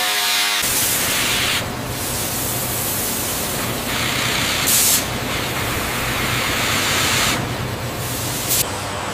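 Factory machinery noise: a steady hiss over a low machine hum, with a brief louder hiss about five seconds in.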